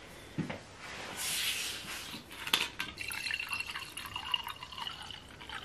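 A glass bottle is opened with a brief hiss and a click, then liquid is poured from it into a drinking glass in a steady stream that gives a high ringing tone as the glass fills.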